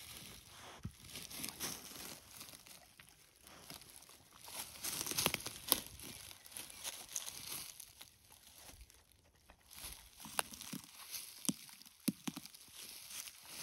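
Black Labrador retriever rustling through low wild blueberry bushes as it noses in and picks berries off them, with small snaps and crackles of twigs and leaves at irregular moments; busiest about five seconds in and again near the end.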